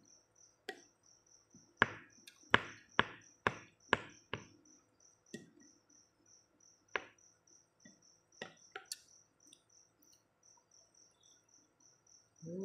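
A cricket chirping steadily in the background, about three chirps a second, under a series of sharp clicks and knocks from eating with a plastic spoon in a ceramic bowl. The clicks come thickest and loudest from about two to four and a half seconds in, with a few more later.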